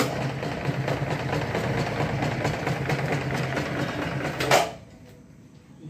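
A homemade semi-automatic chain-link fence machine, its electric motor driving a belt and gearbox, starts abruptly and runs with a steady mechanical clatter for about four and a half seconds, then stops with a sharp clunk. This is the machine's timer panel restarting it automatically after its set pause and stopping it again.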